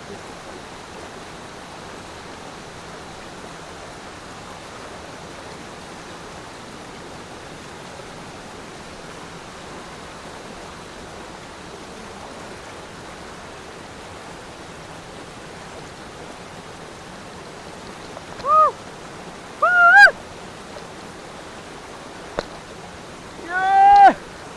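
Steady rushing of a waterfall. Near the end, three short, loud calls, each rising and falling in pitch, sound over the water.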